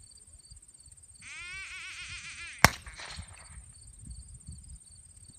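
A duck call blown in a quick, wavering run of quacks for about a second and a half, then a single gunshot, the loudest sound, with a short echo: the call and shot that launch a retrieve at a hunt test. Insects buzz steadily throughout.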